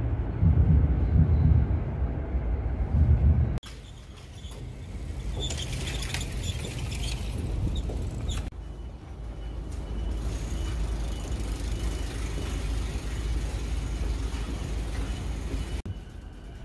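Low rumble of passing vehicles, most likely trains and street traffic. It is loudest for the first few seconds, and the background changes abruptly about 3.5, 8.5 and 16 seconds in, as between separate shots.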